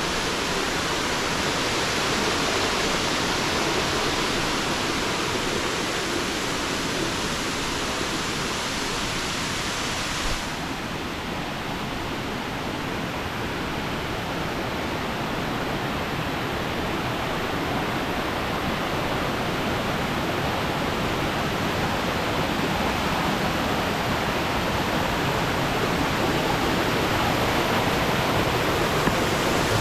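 Waterfall rushing steadily, a dense even hiss of falling water. About ten seconds in it suddenly turns duller, losing its top hiss.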